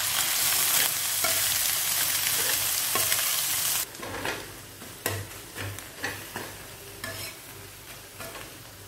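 Chopped onion, tomato, green chilli and curry leaves sizzling with egg in oil on a dosa tawa while a metal spatula stirs and scrapes them. About four seconds in the sizzle drops to a quieter level, with a few sharp spatula taps and scrapes on the pan.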